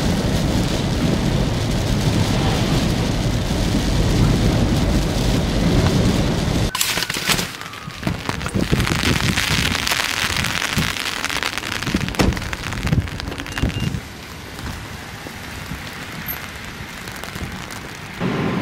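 Car driving on a rain-soaked road, heard inside the cabin: tyre and road rumble with rain on the car. About seven seconds in it cuts to rain falling on an open umbrella with a few sharp taps, and it grows quieter from about fourteen seconds.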